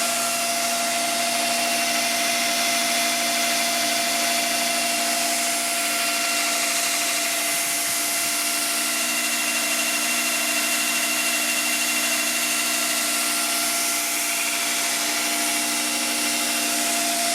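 Black Fox ONE 2x72 belt grinder with a 12-inch serrated contact wheel running unloaded at about 65% speed. It gives a steady whine of several held tones over an even belt hiss.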